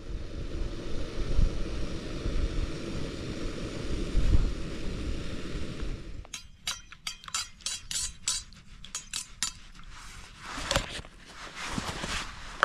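A gas canister stove's burner hisses steadily while wind buffets the microphone with low rumbles. About six seconds in this gives way to a quick run of sharp metallic clinks, a spoon stirring a brew in a metal mug, with a few more clinks near the end.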